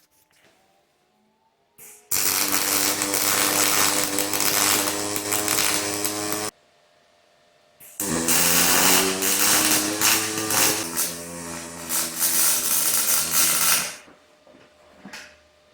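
Angle grinder grinding metal in two runs: the first starts about two seconds in and stops sharply, the second spins up with a rising whine about eight seconds in and runs until near the end.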